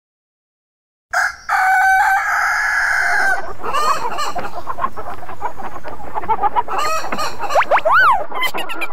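Rooster crowing about a second in, followed by chickens clucking. Near the end a single short tone rises and falls.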